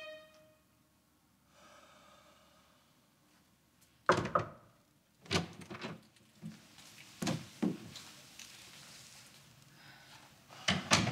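Door thuds and clunks: a handful of separate knocks spread over several seconds, the loudest about four seconds in and again near the end.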